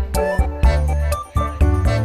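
Upbeat background music with a steady beat, bass and keyboard-like notes.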